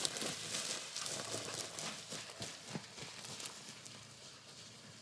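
Small tractor tire rolling and bouncing down a grassy hillside, a run of irregular thuds with a swish of grass, fading as the tire rolls away.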